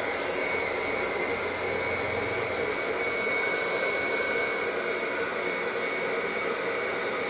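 Handheld hair dryer running steadily on its blow setting, a thin steady whine above the rush of air.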